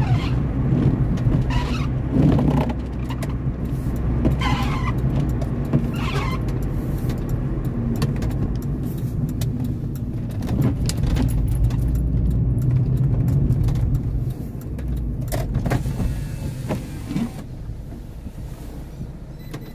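Car engine and tyre noise heard from inside the cabin, with a few short windscreen-wiper strokes across a wet windscreen in the first several seconds. The noise drops away near the end as the car slows to a stop.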